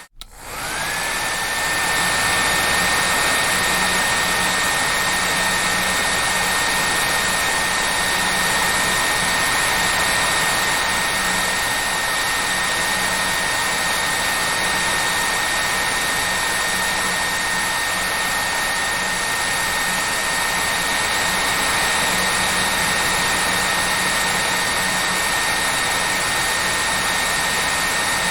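Hair dryer blowing steadily, a loud rushing noise with a high motor whine over it. At the very start the sound cuts out for a moment, then comes back with the whine rising to its pitch within about a second.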